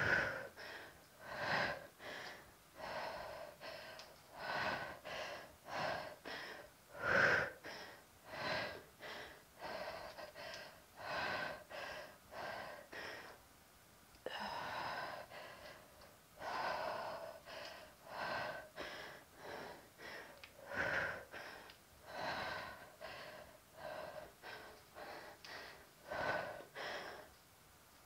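A woman breathing hard through the mouth from exercise exertion: short, even puffs of breath about twice a second, with a brief pause about halfway through.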